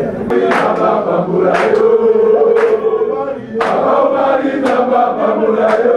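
A crowd of men chanting a song together in unison, with a sharp beat about once a second.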